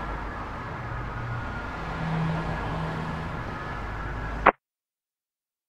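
Steady engine drone and road noise of a moving truck, heard as from inside the cab. It cuts off with a sharp click about four and a half seconds in, then dead silence.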